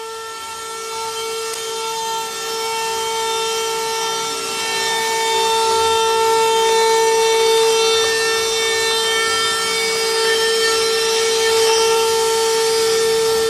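Spindles of a three-spindle CNC router running with a steady high-pitched whine over a hiss, slotting an aluminum composite panel. The sound grows louder over the first few seconds, then holds steady.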